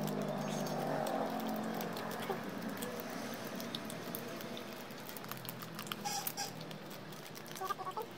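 Plastic snack wrappers crinkling and rustling as they are handled and pulled open, with scattered sharp crackles that grow busier near the end.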